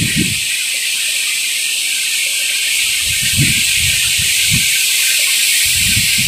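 Strong wind blowing with a steady, loud hiss, with gusts buffeting the microphone in low rumbles at the start, about three seconds in and near the end.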